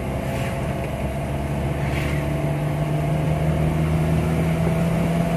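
Vehicle engine running under way, heard from inside the cab: a steady drone that rises a little in pitch and grows slightly louder from about two seconds in.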